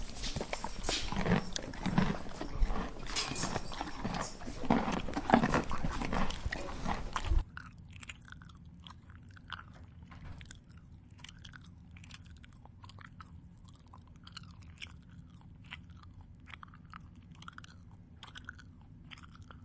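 A farm animal chewing and crunching its food close up: loud, dense crunching for about the first seven seconds, then after a sudden cut, quieter, separate crisp bites that keep on.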